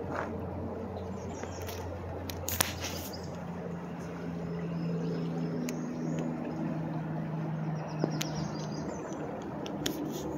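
Shallow creek water rippling over a gravel bed, a steady rushing hiss, with a faint low drone underneath and a few sharp clicks, the loudest about two and a half seconds in.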